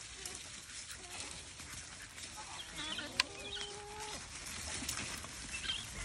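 Chickens clucking faintly, with a sharp click and a short held call about three seconds in.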